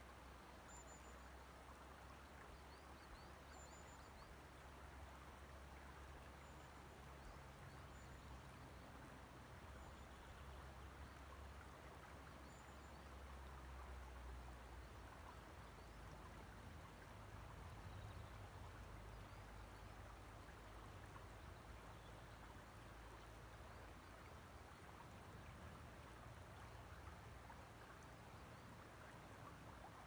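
Faint, gentle lapping and trickling of loch water at a stony shore, over a soft low rumble. A few faint high chirps sound in the first dozen seconds.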